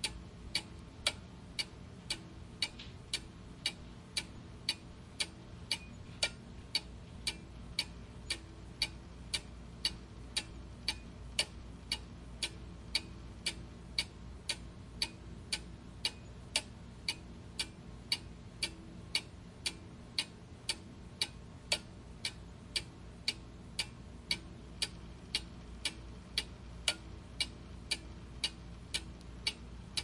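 Clock ticking steadily, about two sharp ticks a second, at an even rhythm.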